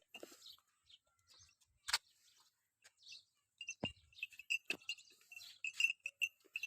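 A small bird chirping over and over, one short high note a few times a second, starting about halfway through. There are also a few sharp knocks.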